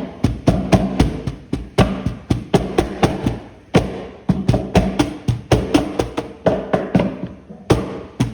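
Instrumental stretch of a song with no singing: a driving beat of sharp drum hits, about three or four a second, over steady low tones.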